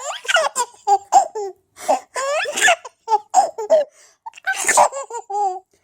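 High-pitched laughter in quick short bursts, the 'sneezing laugh', with a sharper, breathy burst a little before the fifth second.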